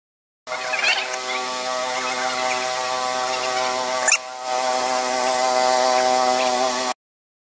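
Titan PowrLiner 3500 line striper running: a steady pitched hum from its small petrol engine and diaphragm paint pump, with one sharp click about four seconds in. The sound starts abruptly about half a second in and cuts off shortly before the end.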